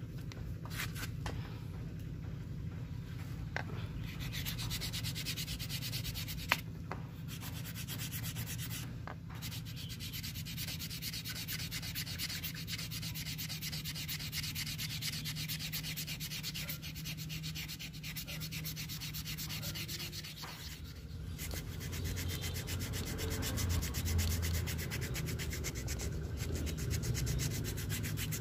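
Wooden knife handle being sanded by hand, sandpaper rubbed back and forth along it in quick, even strokes. A single sharp tap about six seconds in.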